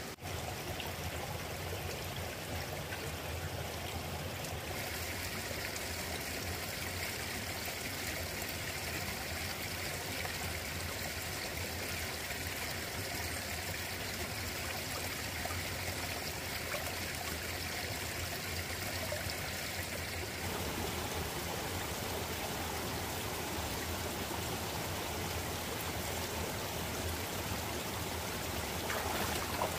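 Running water of a stream flowing steadily, a continuous rushing and trickling.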